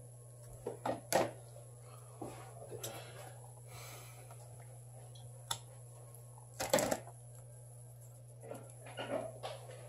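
Scattered small clicks, taps and rustles of hands working with tools and adhesive tape on a workbench, the sharpest about a second in and just before seven seconds, over a steady electrical hum.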